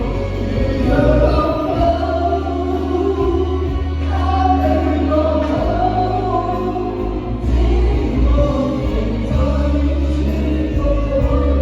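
Live band playing an old pop song, with several voices singing along over a steady bass.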